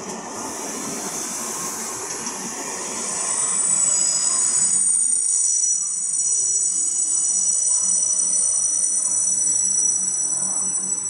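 Passenger train carriages rolling past a station platform, with a steady rumble of wheels on the rails. About three seconds in it gets louder and a steady high-pitched squeal joins in.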